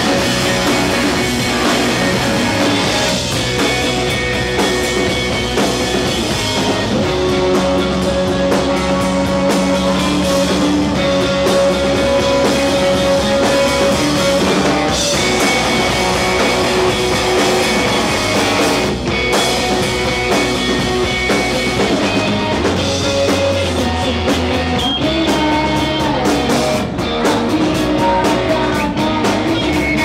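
Rock band playing live: electric guitar over a drum kit, without vocals.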